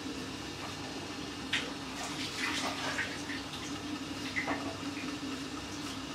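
Covered steel pot of chicken masala simmering on a low gas flame, with irregular bubbling and crackling over a steady low hum.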